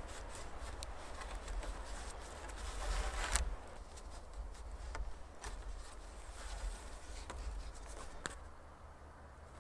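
Thin cord being pulled and wrapped tight around peeled wooden poles: close rustling and scraping of rope on wood and hands, with scattered small clicks, loudest a little past three seconds in.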